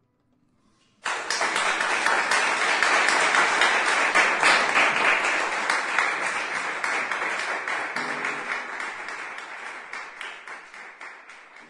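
Audience applause: many hands clapping, breaking out suddenly about a second in and then slowly fading away.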